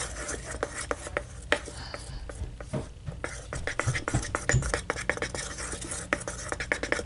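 Stick stirring a thick mix of glue, shaving cream and paint in a bowl: rapid, irregular scraping and clicking strokes against the bowl.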